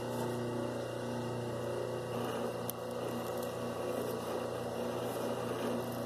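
Electric wire stripping machine's motor running with a steady hum while a thick piece of copper wire is fed through it to slit the insulation.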